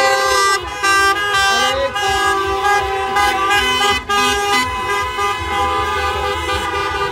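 Car horns of a slow-moving convoy honking, several at different pitches overlapping in long sustained blasts.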